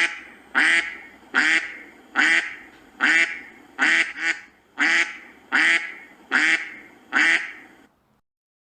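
A duck quacking repeatedly, about ten quacks in a steady rhythm of roughly one a second, stopping shortly before the end.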